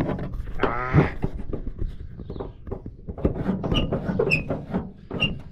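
Clicking, knocking and rattling of a VW dune buggy's shift linkage as the shifter is worked by hand in the centre tunnel, the shift rod tube dragging on a bracket so it won't rotate properly. About a second in there is a short rising squeak or groan.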